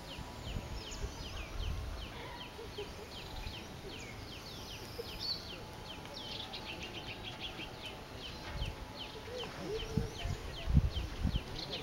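A bird calling steadily in a rapid series of short, high, falling chirps, several a second, with a few low muffled thumps near the end.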